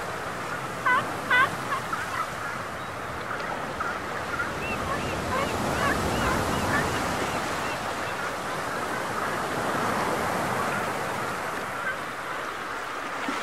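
Animal calls from the rocks: two loud honking calls about a second in, then a run of fainter short arching calls, over a steady wash of water and wind.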